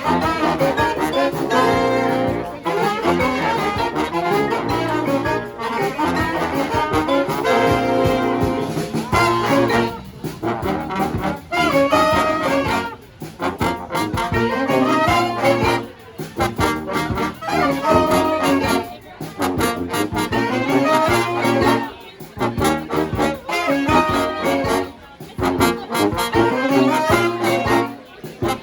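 Brass band playing live, a large trombone section with trumpets over a steady bass line, in punchy phrases broken by short gaps.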